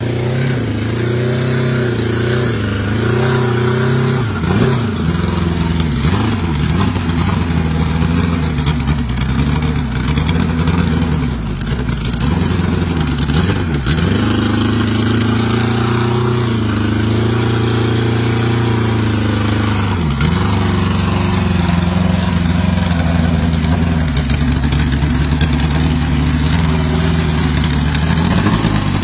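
Engine of a custom drag motorcycle with a huge tractor-tire rear wheel, running and revved up and down over and over, with a few quick drops in pitch, then held at a higher steady speed toward the end.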